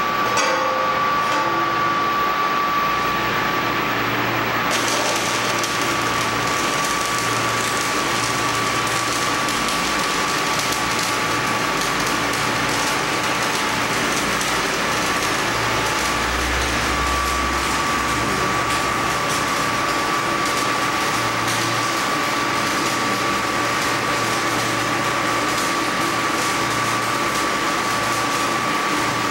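Stick (SMAW) welding arc from a 600 A welding rectifier, the electrode burning with a steady crackling hiss on rusty steel sheet. A couple of light taps come at the start, and the hiss grows brighter about five seconds in.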